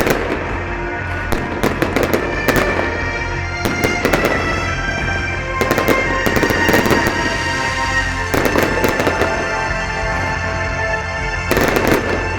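Fireworks display: repeated bangs and crackling, coming in clusters of rapid bursts with short lulls between them.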